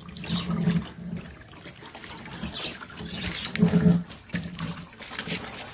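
Labrador puppy grunting and whining in short low bursts, loudest about half a second in and again near four seconds in, while water from a hose trickles over its wet coat.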